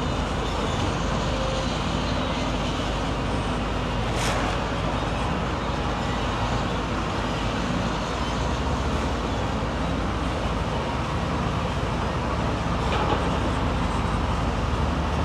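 Heavy diesel construction machinery running steadily under work, with a brief clank about four seconds in.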